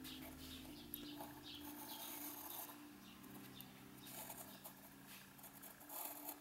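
Faint scratching of a graphite pencil drawing lines on watercolor paper, several short strokes, over a steady low hum.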